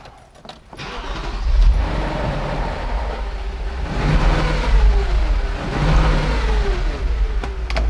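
Audi cabriolet engine starting on its freshly fitted battery: a few clicks, then it catches about a second in and runs, its pitch rising and falling.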